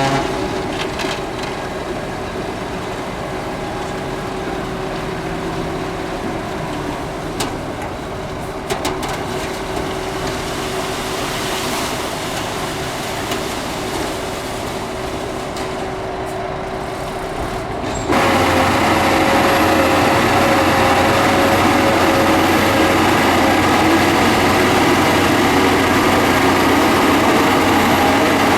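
Diesel engines of heavy earthmoving machinery running steadily, with a few short clanks. About two-thirds of the way through, the sound switches abruptly to a louder, steadier engine drone.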